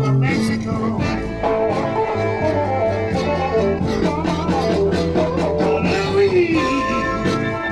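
Blues music: an instrumental passage with a guitar playing lead lines over the band, sliding down in pitch near the end.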